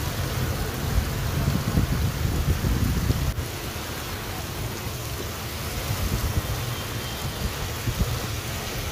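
Heavy monsoon rain pouring down steadily onto a waterlogged road, with a low rumble underneath that eases after about three seconds.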